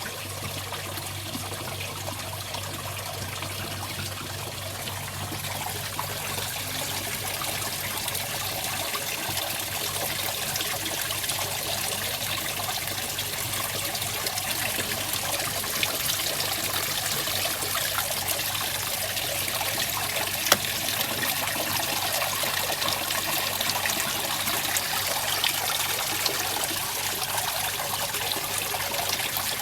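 Water trickling steadily into a koi pond over a low steady hum, with one sharp click about two-thirds of the way through.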